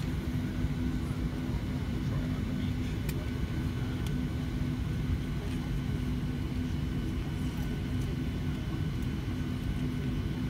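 Steady low rumble with a constant hum inside a Boeing 737-700 cabin parked at the gate, the air conditioning running before engine start. A couple of faint clicks sound a few seconds in.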